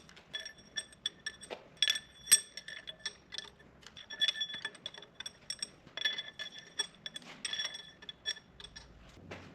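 Light metal clinks and taps, irregular, many with a short bright ring, from pushrods and rocker arms of a 12-valve Cummins valve train being handled and fitted into the engine; the sharpest clink comes about two and a half seconds in.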